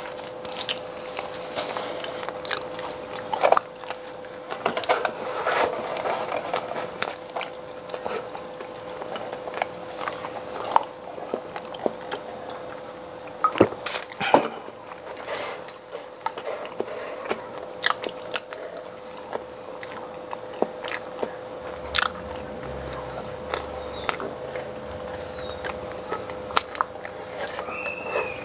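A person biting and chewing pizza, with frequent short crackles and smacks of mouth and food, over a steady hum.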